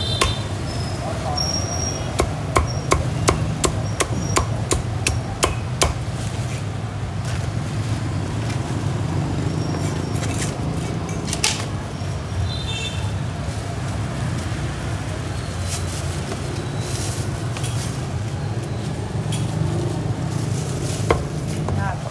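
Heavy cleaver chopping crispy-skinned roast pork on a thick round wooden chopping block: a quick run of sharp chops, about three a second, between two and six seconds in, then a few scattered strokes later. A steady low hum runs underneath.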